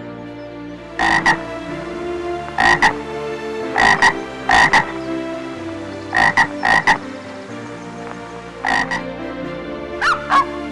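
Frog croaking in about six short groups of two or three pulsed croaks, a second or more apart, over steady background music. Near the end different calls with bending pitch begin.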